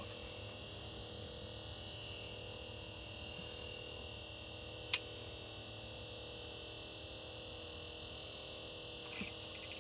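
Steady electronic hum with a faint high whine, and one sharp click about five seconds in.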